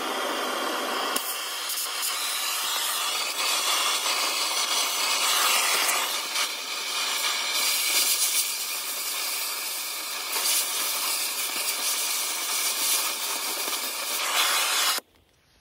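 A steady, loud hiss that cuts off suddenly near the end.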